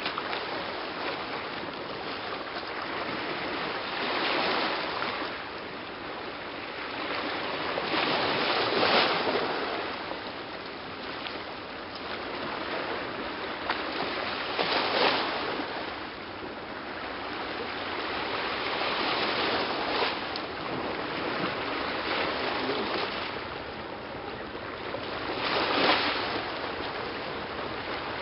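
Sea waves washing against the shore: a steady rushing that swells louder about every five seconds as each wave comes in.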